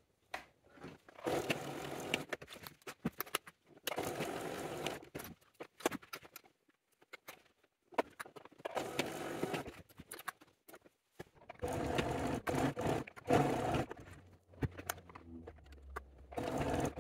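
Domestic sewing machine stitching in about five short runs of one to two seconds each, with pauses and a few clicks between them, as seams are sewn that start and finish with a backstitch.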